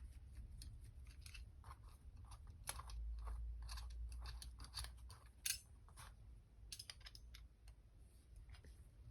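Faint, irregular small metal clicks and scrapes of a hand tool working the cylinder head screws of a small model nitro engine, as the screws are undone.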